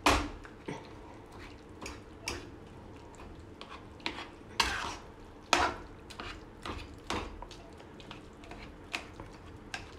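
A metal spatula scrapes and knocks against a kadhai in irregular strokes as boiled vegetables are stirred and mashed while they fry. The loudest strokes come at the very start and at about four and a half and five and a half seconds in.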